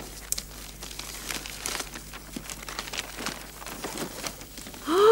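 Paper wrapping of a parcel rustling and crinkling in scattered small crackles as it is cut open and unwrapped, with a short voiced exclamation right at the end.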